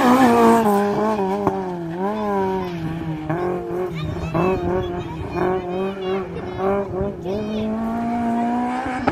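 Race car engine running hard on a slalom run, its revs repeatedly dipping and rising as the car works through the course. There are a couple of brief tyre squeals.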